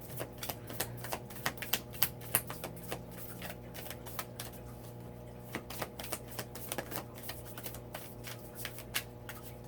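Oracle cards being shuffled by hand: a rapid run of card clicks and flicks, thinning out after the first few seconds, over a faint steady hum.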